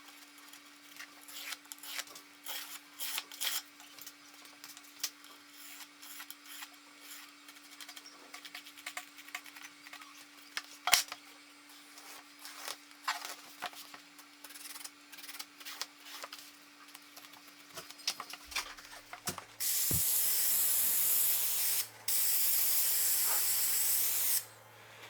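Scattered light taps and clicks, then a low hum starts and a loud hissing spray comes in two bursts of about two and a half seconds each, with a short break between.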